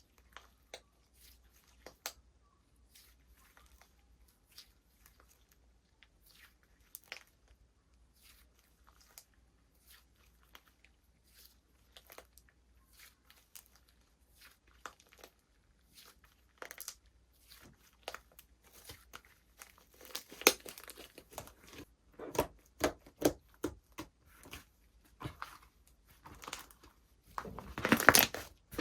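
Crinkling and tearing handling sounds: scattered sharp clicks at first, growing busier and louder about two-thirds in, with a loud run of crackling near the end.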